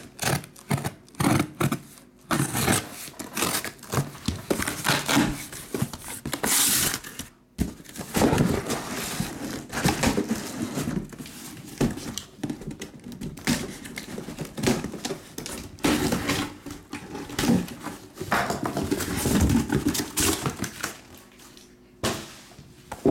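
A cardboard case of sealed trading-card boxes being opened and unpacked by hand: irregular rustling and scraping of cardboard and plastic shrink-wrap, with many short knocks as the boxes are handled.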